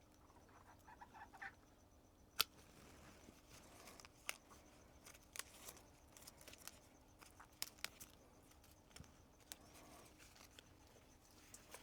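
Pruning shears snipping small softwood stems off a sweet bay plant: a scattered series of sharp, single clicks over several seconds, the loudest a couple of seconds in.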